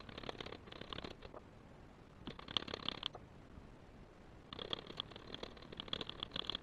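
Rounded metal-tipped tool rubbed quickly back and forth over a small sterling silver flower on a metal disc, a rapid scratchy rasping. It comes in three spells, with a quieter stretch in the middle.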